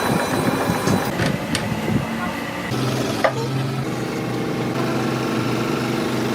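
Mixed workshop noise, then an abrupt change to a machine running steadily with an even hum, and a single sharp click shortly after the change.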